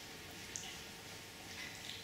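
Faint handling sounds of a camcorder being screwed onto a plastic irrigation-fitting mount, with a few light clicks, the sharpest about half a second in.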